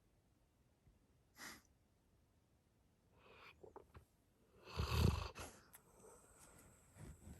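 Sleeping Labrador retriever snoring in uneven breaths: a short one about a second and a half in, a few around three to four seconds, the loudest and deepest about five seconds in, then softer ones near the end.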